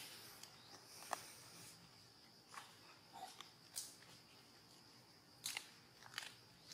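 Faint outdoor ambience: a steady high-pitched insect drone, with a few short sharp clicks scattered through it.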